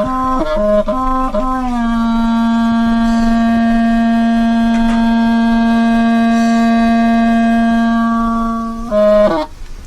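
Music played on a wind instrument: a few quick notes, then one long note held for about seven seconds, then a brief run of notes near the end.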